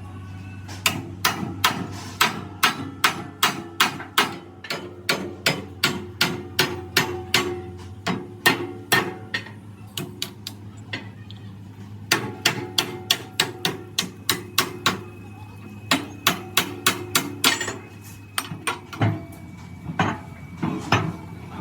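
Hammer blows on the steel parts of an excavator track chain, about three strikes a second, with a short break about ten seconds in and sparser blows near the end. A steady low hum runs underneath.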